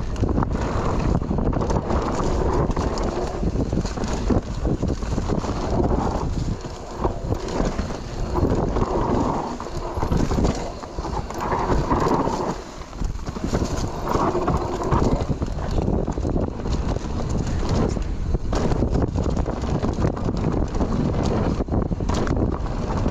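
Mountain bike descending a dry, dusty dirt trail at speed: wind buffeting the microphone, tyres on dirt and the bike rattling and knocking over bumps.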